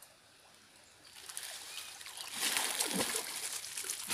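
River water splashing as a swimmer with a diving mask surfaces and thrashes at the surface. Quiet at first, then loud splashing from a little past two seconds in.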